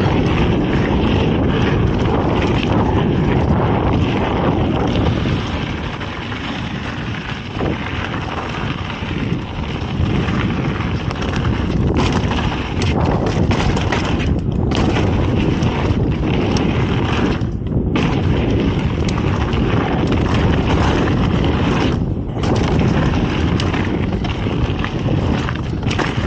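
Wind buffeting the camera microphone and a full-suspension mountain bike's knobby tyres rumbling over dirt singletrack at speed, with frequent knocks and rattles from the bike over bumps.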